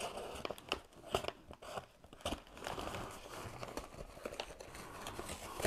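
Brown paper bag rustling and crinkling as it is opened by hand, with many short irregular crackles.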